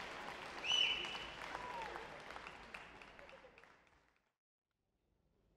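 Audience applauding in a large hall, with a loud whistle from the crowd about a second in; the clapping dies away and fades to silence around four seconds in.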